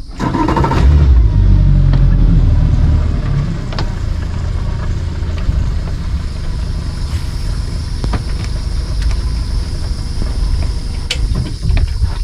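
Boat's outboard motor starting, running loudest for the first couple of seconds, then settling to a steady idle.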